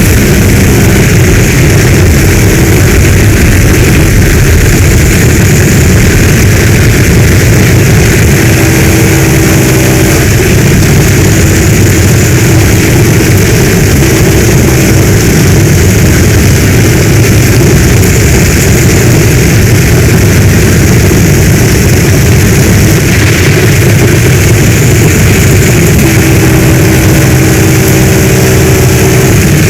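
Heavy storm rain pouring steadily, loud, with a deep low rumble under it.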